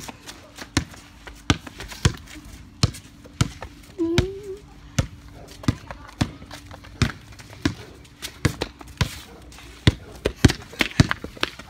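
Basketball dribbled on a paved driveway: a steady run of bounces, about one and a half a second, coming slightly faster near the end.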